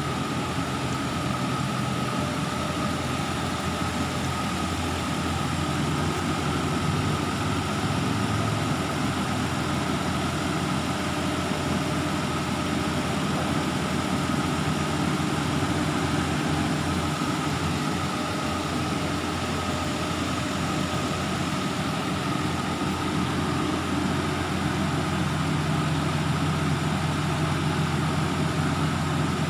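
Engine of a truck-mounted boom lift running steadily while the boom raises the work platform, with a steady hum and a constant high tone over it.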